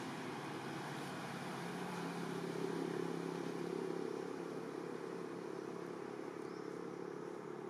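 Distant engine hum, running steadily, growing a little louder a couple of seconds in and then easing off.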